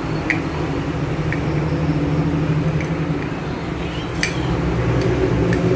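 A few light metallic clicks and clinks as brake pad parts are handled and seated in a motorcycle's front disc brake caliper, the sharpest about four seconds in. Under them runs a steady low hum.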